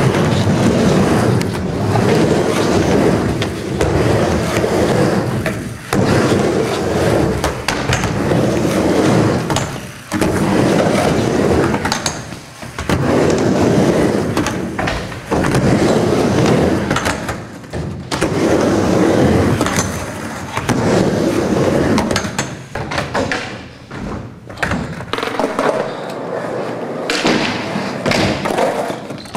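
Skateboard wheels rolling on a wooden mini ramp, the rumble swelling and fading every couple of seconds as the skater rides back and forth. Occasional sharp clacks of the board come through.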